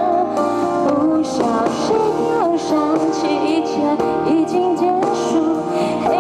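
Live pop song: a woman singing over a full band accompaniment.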